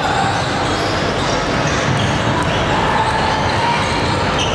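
Basketball game noise on an indoor court: a ball bouncing over a steady din of players' and spectators' voices.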